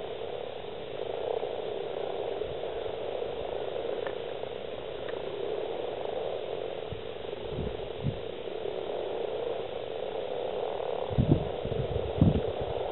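Breeding chorus of many male common frogs (Rana temporaria) calling together at the spawning pond, a continuous massed low croaking. A few short low thumps come in the second half.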